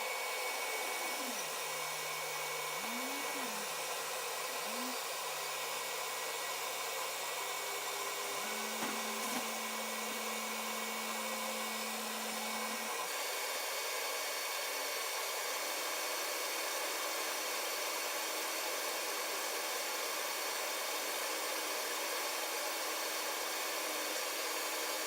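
80 W CO2 laser cutter at work cutting plywood: a steady hiss of air from the machine. Faint low motor tones glide up and down a few times in the first five seconds as the head moves, and one holds steady for several seconds near the middle.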